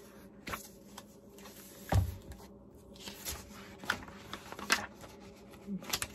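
Pages of a new hardbound book being separated and turned by hand: scattered papery rustles and light ticks, with a dull thump about two seconds in.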